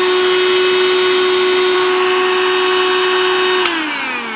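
Fujiway AK-007A cordless handheld vacuum cleaner running with a steady motor whine. Near the end it is switched off with a click, and the whine falls in pitch as the motor spins down.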